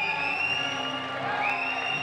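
Audience cheering over background music, with two long high calls that each rise and then hold, one running on from just before and one starting about a second and a half in.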